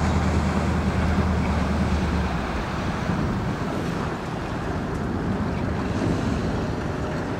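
Wind buffeting the microphone over water splashing along a moving boat's hull. A low steady hum underneath fades about two and a half seconds in.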